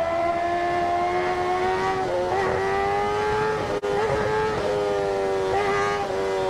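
Kawasaki ZX-10R inline-four engine running at high revs under way on the highway, its note climbing slightly for about four seconds and then easing off a little, with wind rush over the microphone.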